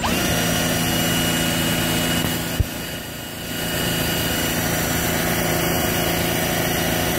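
Electric drill running steadily as it spins a small DC motor used as a generator on a test dyno. It spins up with a quick rising whine at the start, then holds one steady drone. About two and a half seconds in there is a sharp click, and the drone dips briefly before coming back up.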